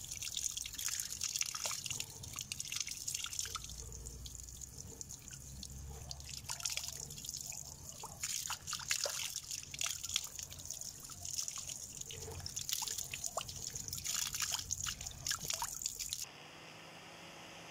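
A stream of water splashing and dripping off a rusty steel knife blade held under it, in an irregular patter of splatters. About a second before the end it cuts off suddenly to a steady faint hiss.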